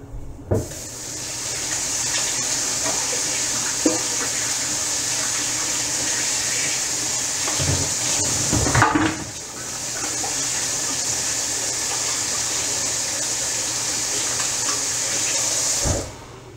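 Sink tap running while hands are washed under it: a steady rush of water that starts about half a second in, dips briefly around the middle with a knock or two, and shuts off just before the end.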